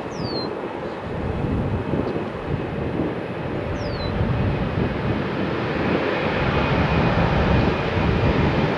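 Delta Airbus A320-family airliner's twin jet engines at takeoff power on the takeoff roll, a steady roar that grows gradually louder as the jet comes nearer, with a faint whine in the second half.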